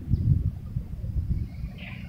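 Wind buffeting a phone's microphone: a gusty, uneven low rumble, with a short faint high chirp near the end.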